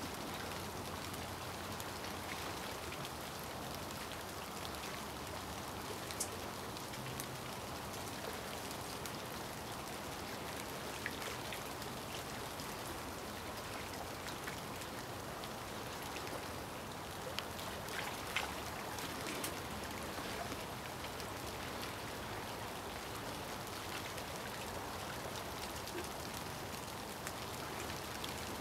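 Steady hiss of rain, with scattered sharp ticks of single drops through it.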